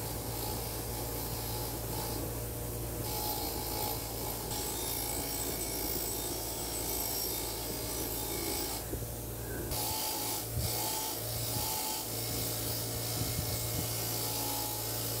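Bench grinder's spinning wire wheel scraping against a rusty steel wrench, a steady rough rasping over the motor's hum as the rust is brushed off.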